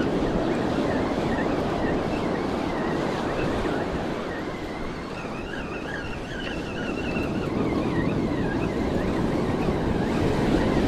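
Ocean surf breaking and washing up a sandy beach, with wind buffeting the microphone. The rush eases a little in the middle and builds again near the end.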